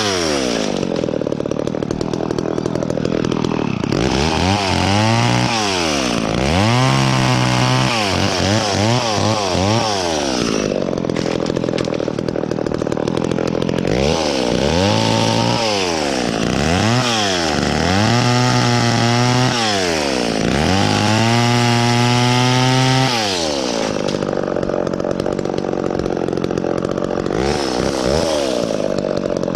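Two-stroke chainsaw revved up and down over and over, falling back to idle between throttle blips. In the last few seconds it holds a steadier high speed.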